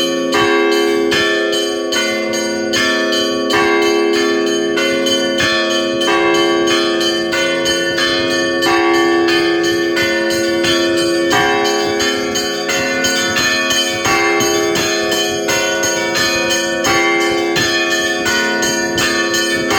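Orthodox church bells of several sizes rung together in a continuous peal: quick repeated strikes on the smaller bells over deeper bells that keep ringing on.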